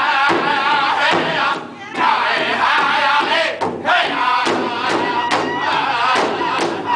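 A powwow drum group of men singing loudly together in high voices while beating a steady rhythm on a large shared hide drum with padded drumsticks.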